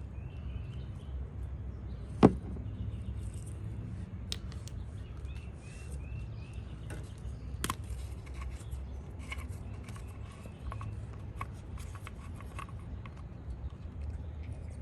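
Scattered clicks and taps of hand tools at work on a dirt bike, with one sharp, loud clack about two seconds in, over a steady low rumble; small birds chirp now and then.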